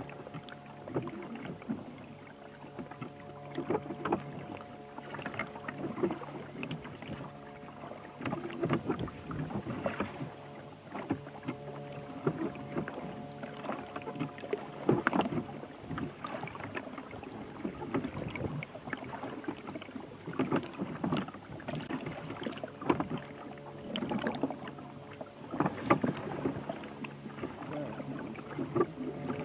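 Water splashing and sloshing irregularly against a boat, over a steady low hum of several held tones.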